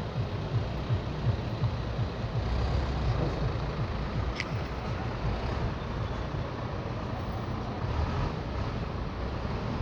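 Street traffic noise: a steady rumble of passing vehicles, with a single short click about four seconds in.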